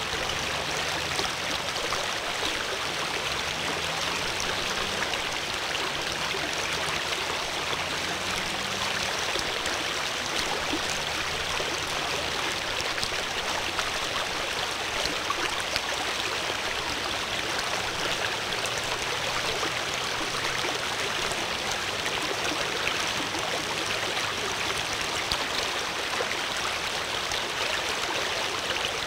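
Steady running water of a stream, an even rushing with no breaks. Faint low tones underneath shift in pitch every second or two.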